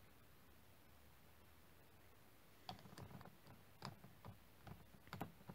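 Near silence for the first two and a half seconds, then a scatter of small, light clicks and taps as the plastic cap of a glass bottle of liquid plastic cement is put back on and plastic model parts are handled.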